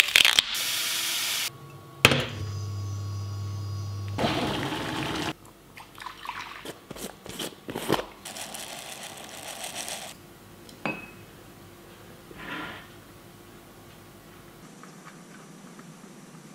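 Handling sounds from several quick cuts: knocks, clinks and rustles of hands working with 3D-printed plastic pieces, a plastic jar of polymorph and a cup of water, with a hiss in the first second or so and a steady low hum for a second or two after it.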